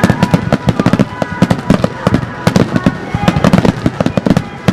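Fireworks display: a rapid, continuous run of sharp bangs and crackles from aerial shells bursting, several a second.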